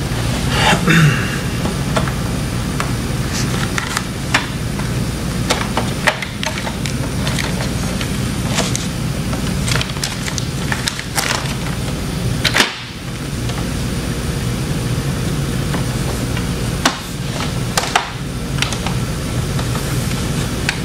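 Scattered clicks, knocks and rustles of plastic bags and bagged bird being handled on a work surface, over a steady low mechanical hum.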